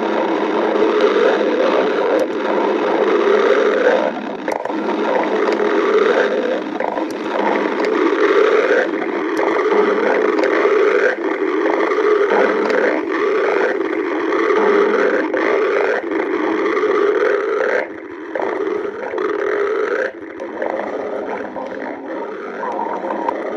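Stomach growling: a long, loud, continuous rumbling gurgle that swells in a repeating pattern about every second and a half, easing off briefly twice near the end.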